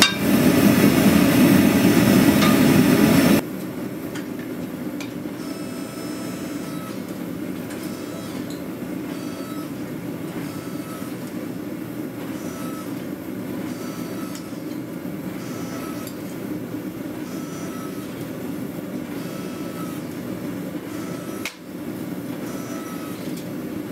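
A gas forge burner roaring for about the first three seconds, then a forging press running with a steady low mechanical rumble and a faint repeating pattern about every second and a half, as a glowing steel bar sits between its dies.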